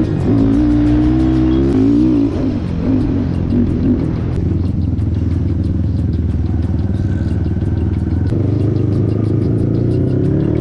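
ATV engine running under way on a dirt trail, revving up and down in the first couple of seconds and then pulling steadily, with a rattle of the ride over rough ground.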